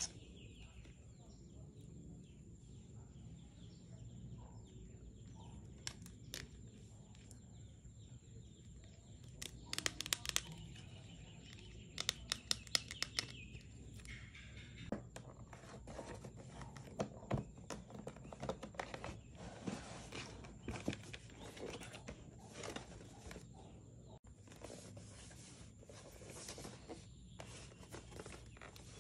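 Sharp taps and clicks of long fingernails and a plastic card handled against cardboard packaging, with quick clusters of taps about ten and twelve seconds in. Later, scattered clicks and rustling as a cellophane-wrapped box is gripped and lifted.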